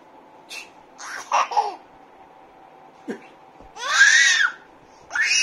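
Baby laughing and babbling: a few short vocal bursts in the first half, then two loud high-pitched squealing laughs near the end.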